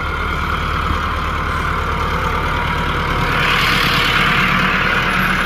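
Massey Ferguson tractor's diesel engine running steadily under load while it pulls a seed drill across the field. The sound grows louder about three seconds in as the tractor passes close by.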